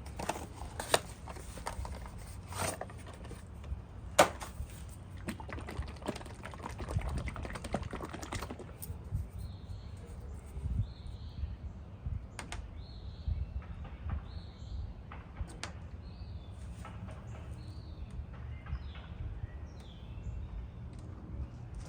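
Clicks, knocks and light rattles from handling a bottle of engine treatment and a funnel while pouring them into the engine's oil filler. They come thick in the first eight seconds, with two sharper knocks about one and four seconds in. Later, birds chirp in the background.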